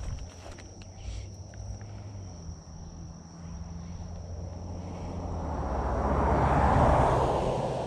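A car passing on the road, growing louder to a peak about seven seconds in and then fading, over a steady high drone of insects.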